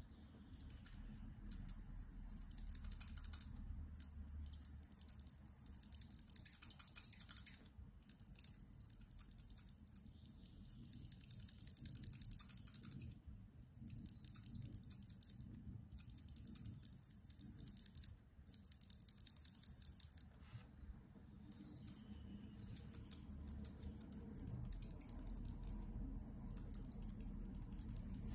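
Copic alcohol marker nib scribbling on paper in quick, short strokes, a fast scratchy patter that stops briefly each time the marker lifts.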